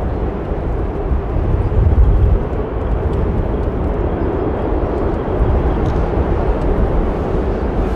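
Jet engines of an Airbus A380 rolling out on the runway after landing, heard from a distance as a steady, deep rumble.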